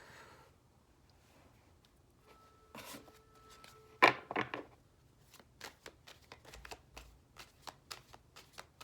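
A deck of oracle cards being handled and shuffled: a sharp card snap just after four seconds in, then a run of quick, light card flicks at about three a second.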